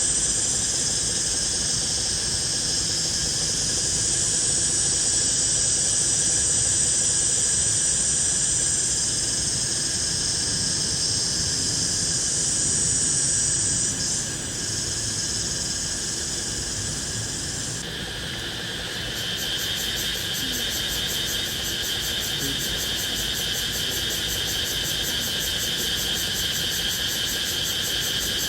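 Forest insects calling in a steady, high, shrill chorus. About two-thirds of the way through, the highest shrill stops, and a lower, steady, pulsing trill carries on.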